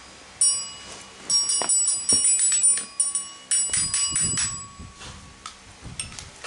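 Toy xylophone's metal bars struck with a mallet: an irregular string of bright, ringing notes, several in quick succession, with the last ones about five and a half and six seconds in.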